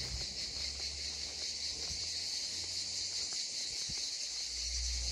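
Steady high-pitched drone of a summer insect chorus in the trees, with a low rumble underneath that drops away briefly about three and a half seconds in.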